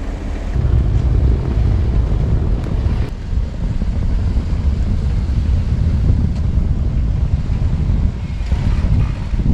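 A vehicle driving through deep snow, its engine and tyres making a steady low rumble that gets louder about half a second in.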